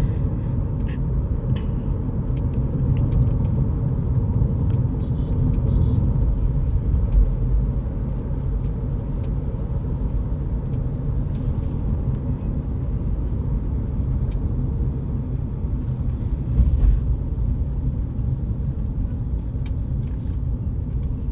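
Car driving along, heard from inside: a steady low road and engine rumble with a few faint knocks and rattles.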